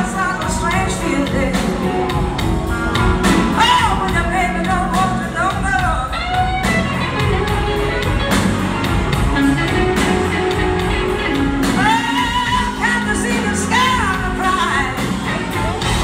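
Live blues band playing a slow blues: gliding electric slide-guitar lines and singing over drums and upright bass.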